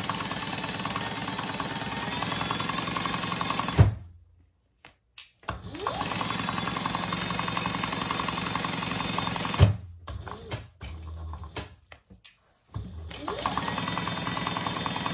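Sewing machine stitching through four layers of fabric, batting and insulated lining in quick even stitches. It stops with a thump about four seconds in, starts again with a rising whine a second and a half later and runs until it stops with another thump near ten seconds. After a few faint clicks it starts up once more about thirteen seconds in.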